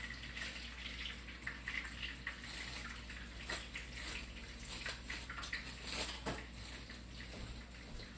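Plastic cling wrap crinkling as chilled, wrapped chicken rolls are unwrapped by hand, in short clicks and crackles, the strongest about three and a half and six seconds in. Under it runs a steady watery hiss.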